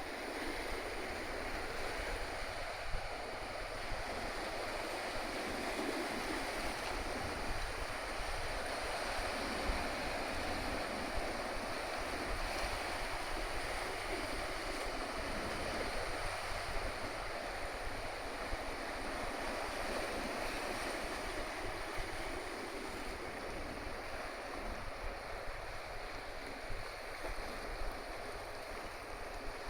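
Steady rushing wash of sea water along the hull of the Tokyo Bay car ferry Kanaya-maru under way, mixed with wind buffeting the microphone.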